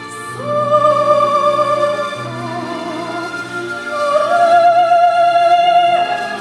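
Operatic singing: one classically trained voice holds long notes with vibrato and steps up to a higher held note about four seconds in, over a low sustained accompaniment.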